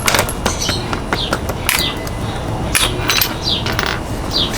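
Scattered metallic clicks and clinks of hand tools and fasteners during exhaust reinstallation on a scooter, with short falling bird chirps in the background.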